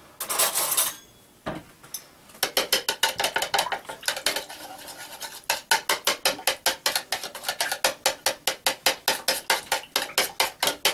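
A metal spoon beating an egg into milk in a ceramic bowl, clicking against the bowl at about five strokes a second. A short rush of noise fills the first second.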